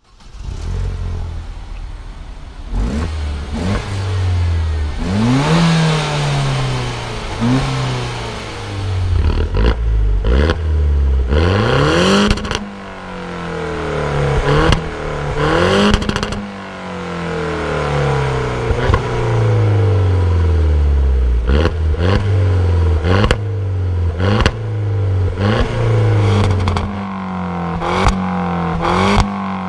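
Citroën DS3 Racing's turbocharged four-cylinder petrol engine revved repeatedly while the car stands still, heard close to its twin tailpipes, the pitch climbing and dropping back with each blip. Short sharp cracks come between the revs, more often in the second half.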